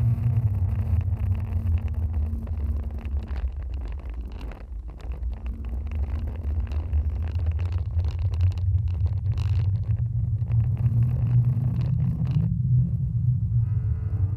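Jet ski engine running with a deep, steady drone, with wind and water noise over the microphone; the higher noise drops away briefly about twelve and a half seconds in.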